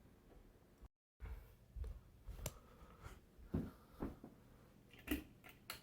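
Harbor Breeze Armitage hugger ceiling fan running on low speed in reverse with a faint steady motor hum. Several sharp clicks or knocks sound over it in the second half.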